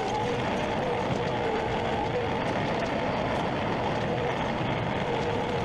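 An engine running steadily, with a whine that wavers slightly in pitch over a constant rumble.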